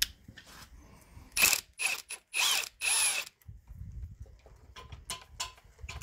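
Socket ratchet on a long extension clicking as it turns a bolt on the half-shaft CV-joint flange of a BMW E39 rear differential: a few quick runs of rapid clicks between about one and a half and three seconds in, then single clicks a fraction of a second apart near the end.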